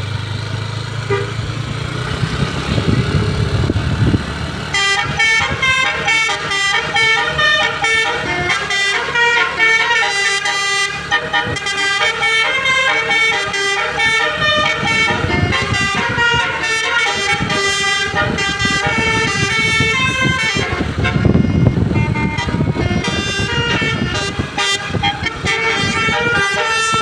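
Bus telolet horn playing a fast, repeating multi-note melody, starting about five seconds in, over the low rumble of a bus engine.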